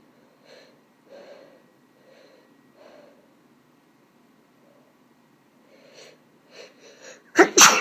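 A woman's soft, uneven breaths building to a sneeze, quickening into short catching inhales, then a loud sneeze near the end in two quick bursts.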